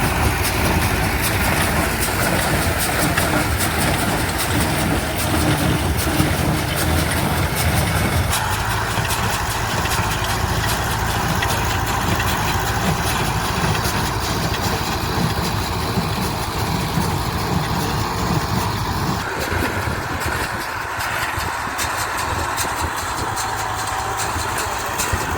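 A vehicle engine running steadily, its sound changing about eight seconds in and its low rumble dropping away near twenty seconds in.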